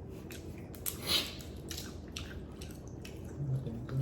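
Close-up eating sounds of seafood being chewed: wet squishes and small clicks, with one louder rasping crunch about a second in.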